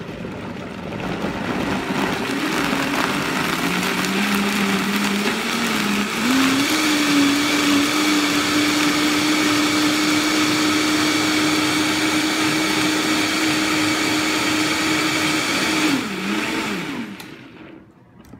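Vitamix blender motor running, puréeing chunky grilled vegetables and cilantro into salsa. Its pitch climbs over the first few seconds, steps up about six seconds in and holds steady, then winds down near the end.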